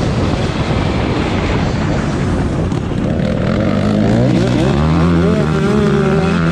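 Several off-road race motorcycles running on a dirt track, engines revving up and down; from about three seconds in, one engine comes to the fore, its pitch rising and falling with the throttle.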